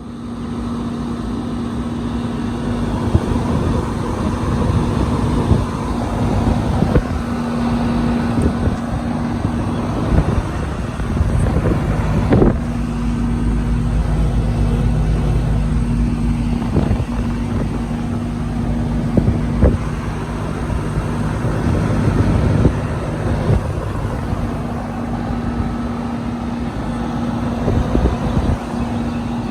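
A 2005 Goodman air conditioner running: a steady electrical hum from the compressor over the rushing air of the condenser fan, with a few light knocks partway through.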